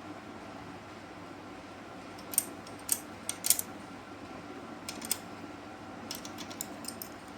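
Metal hand tools clicking and clinking on engine parts in short, sharp taps, several in quick groups, over a steady background hum.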